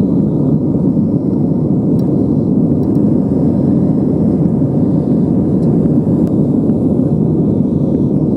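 Airbus A320 cabin noise during the climb-out after takeoff: steady engine and airflow rumble at climb thrust, heard from inside the cabin.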